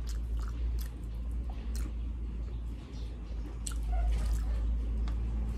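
Close-up eating sounds: chewing with wet, squishy mouth smacks and scattered small clicks as sisig and fried rice are eaten by hand, over a steady low rumble.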